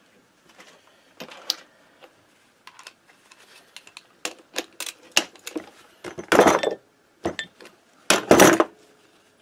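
Metal parts and hand tools clinking and knocking in a run of short, irregular clicks while gears are handled on the opened gearbox of a Minarelli AM6 two-stroke engine. Two longer, louder noises stand out, about six and eight seconds in.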